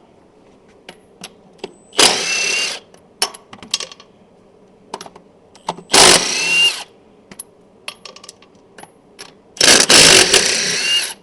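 Impact wrench with a 3/4 socket run in three short bursts of about a second each, the last one longer, loosening the lug nuts on the truck's rear wheels. Each burst ends on a rising whine, with small metal clicks and knocks between the bursts.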